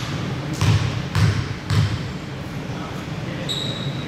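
A basketball being dribbled, three bounces about half a second apart, with a short high squeak near the end.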